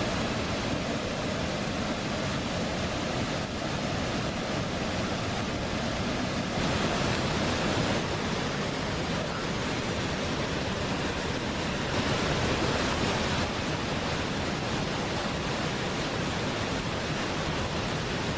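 Steady rushing of a river's water over rocky cascades, an even hiss without pauses that grows a little louder now and then.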